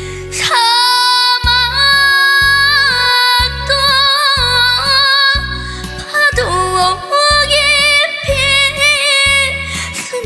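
A young girl sings a slow trot song in the Korean trot style, her voice scooping up into long notes held with wide vibrato. A backing band track plays under her with a steady low beat.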